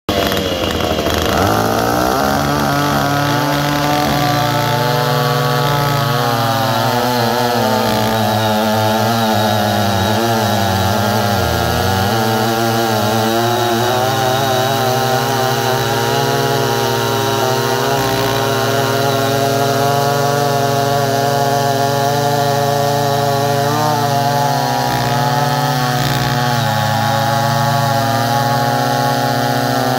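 Two big two-stroke chainsaws, a Stihl 090G and a McCulloch 797G, running together at full throttle while cutting through a large log. Their engine notes rise in the first couple of seconds and then hold steady, wavering as the chains bite into the wood.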